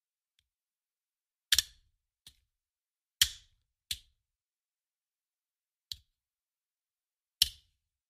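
A handgun magazine thrown down, landing in sharp clacks: three loud hits with pauses of a second or more between them, most followed by a fainter bounce.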